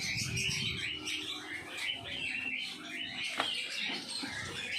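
A flock of lovebirds chattering and chirping continuously, with a single sharp click about three and a half seconds in.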